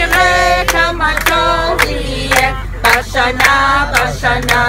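A group of older men and women singing a song together and clapping along in time, about two claps a second.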